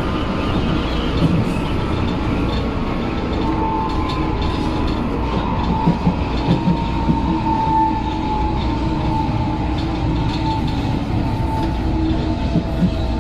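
Reduction gearbox of São Paulo Metro train 218's car G181 growling as the train brakes, with no traction motor or inverter sound, over a steady low rumble; a tone falls slowly in pitch as the train slows. The growl is the sign of a gearbox that probably lacks lubrication.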